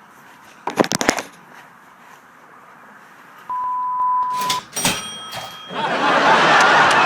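A quick rattle of clicks, then a steady electronic beep lasting about a second, then another brief clatter with a short high ring. Near the end, a crowd's chatter and laughter starts and grows loud.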